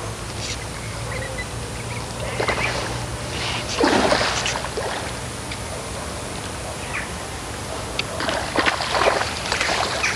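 A hooked rainbow trout splashing and sloshing at the surface as it is played on a fly line, in several irregular bursts, the loudest about four seconds in and a cluster near the end, over a steady low hum.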